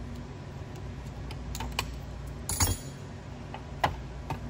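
Small metallic clinks and light knocks from a pair of linked SU H1 carburetors being handled and their connecting linkage undone. The sounds come as scattered single ticks, with the loudest clatter a little past halfway and another sharp click near the end.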